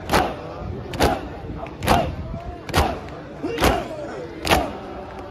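A crowd of Shia mourners beating their chests in unison (matam), a loud slap about every 0.9 seconds, six times, with massed chanting voices between the strikes.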